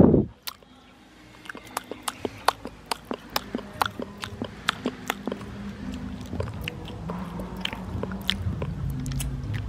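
Children chewing and smacking on soft grilled banana, a long run of small, sharp wet mouth clicks. A brief louder sound cuts off just at the start.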